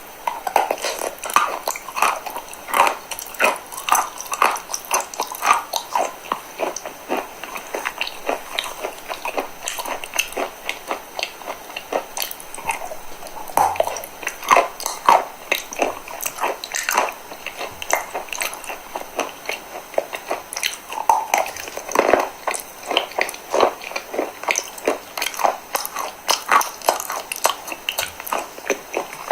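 A person biting and chewing eating chalk close to the microphone: repeated sharp crunches, a few a second.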